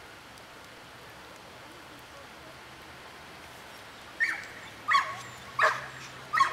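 A dog barking four times in quick succession, starting about four seconds in, with roughly two-thirds of a second between barks, over a steady background hiss.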